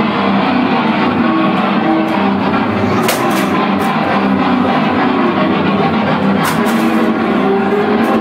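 Loud live heavy band music with distorted electric guitar. Sharp hits cut through about three seconds in and again near six and a half.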